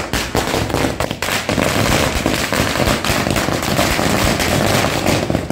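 A 1000-cracker string of firecrackers (ladi) going off. It sets off abruptly and runs as a dense, rapid chain of loud bangs.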